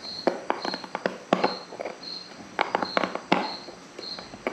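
Irregular sharp clicks and knocks of hard plastic parts being handled and pushed together, with a cricket chirping about twice a second in the background.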